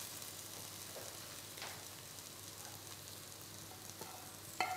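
Food sizzling steadily in a hot frying pan, with a few light knocks; the loudest is a short clink near the end.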